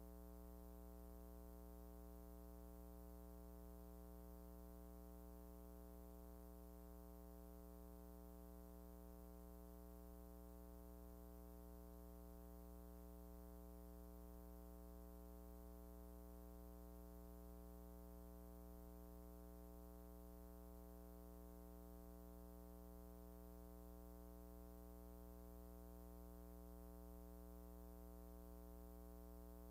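Near silence: a faint steady low hum with overtones, unchanging throughout.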